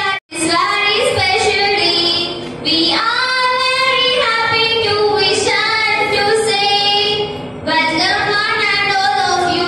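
Young girls singing a welcome song together, in long held notes. The sound cuts out for a moment just after the start.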